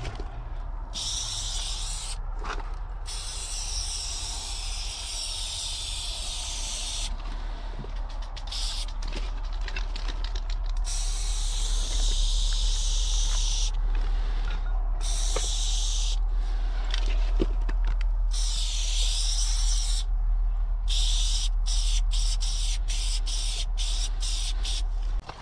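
Aerosol spray paint cans hissing onto a wall in bursts of one to four seconds, stopping and starting, with a run of short quick puffs near the end. A steady low rumble sits underneath.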